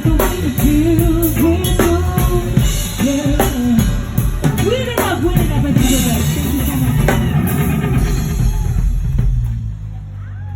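Pop song played loud with a steady drum-kit beat and bass, and a singing voice over it; the music drops down near the end.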